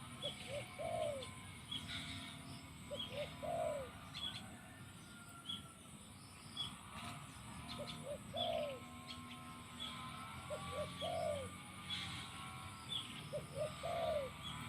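Spotted dove (decoy bird) cooing its three-part call, two short notes and a longer falling note, five times about every three seconds. Faint chirps of small birds sound in between.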